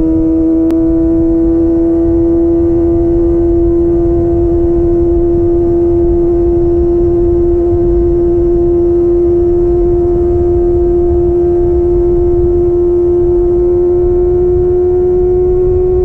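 Kawasaki ZX-25R's 250 cc inline-four running at a high, steady engine speed through a DX Generation Pro Race aftermarket exhaust, its pitch climbing slowly, with a low rumble underneath.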